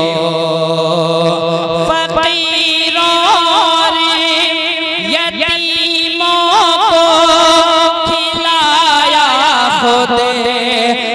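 A voice singing an Urdu naat, holding long notes with quick ornamental trills and slides, over a steady sustained tone.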